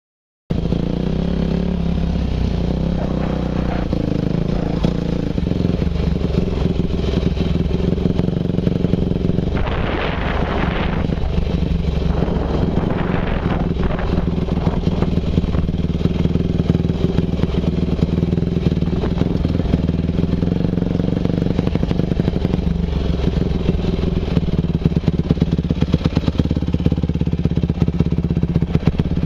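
Dirt bike engine running steadily while riding, its pitch holding fairly even, with two brief rushes of noise partway through.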